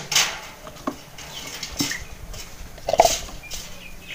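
A chicken being held and handled: scattered short rustles and scuffs, the loudest about three seconds in.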